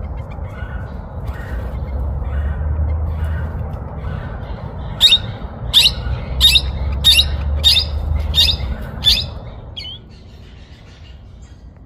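A pair of small parrots calling while mating. Soft chirps at first, then from about five seconds in a run of about eight sharp, high squawks, roughly three every two seconds, which stop near ten seconds. A low rumble runs underneath until the squawks end.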